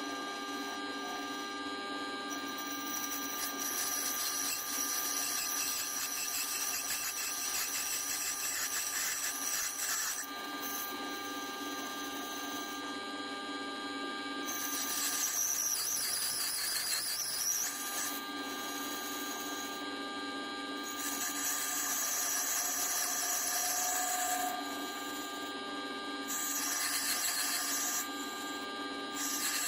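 1893 Strube & Fils lathe turning a brass rod: a steady whine from the spinning machine, with about four stretches of high-pitched cutting noise as the tool takes passes along the brass to form a tapered tip.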